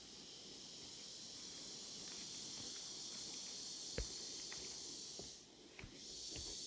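Faint, steady high-pitched chorus of insects in the forest, breaking off briefly about five and a half seconds in, with a few light footsteps on the trail.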